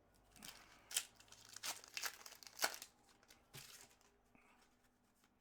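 Foil wrapper of a hockey card pack crinkling and tearing as it is opened by hand, in a string of short crackles with the sharpest snaps about one and two and a half seconds in.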